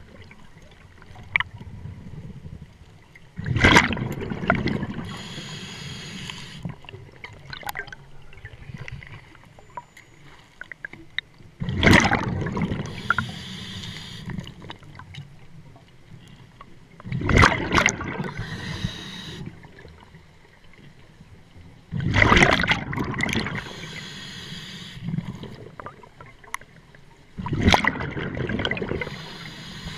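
A scuba diver breathing through a regulator underwater: five breath cycles about five seconds apart, each a loud rush of air followed by a stream of exhaled bubbles gurgling up past the mask.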